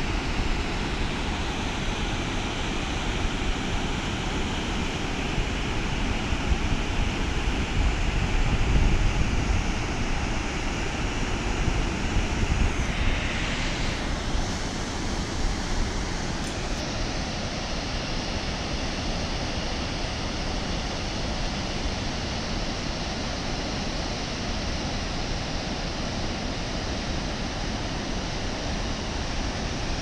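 Waterfall and rapids rushing: a steady, full roar of falling and churning water. In the first half, wind buffets the phone's microphone in uneven low rumbles, which settle to an even rush after about the middle.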